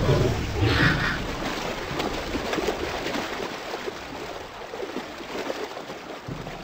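Heavy splashing and churning of river water as crocodiles thrash with their prey. It is loudest in the first second, then eases to a steadier wash of rushing, sloshing water.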